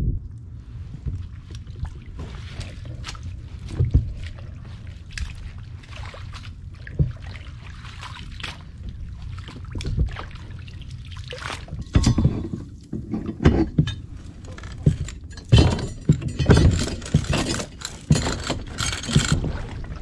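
Water splashing and sloshing at the side of a kayak, louder and busier in the second half, with scattered knocks of gear being handled on board.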